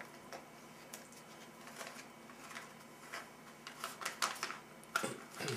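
MRE retort pouch crinkling and rustling as the veggie burger patty in barbecue sauce is squeezed out onto a plastic tray, with light clicks and taps that grow busier toward the end. About five seconds in there is a short falling squeak.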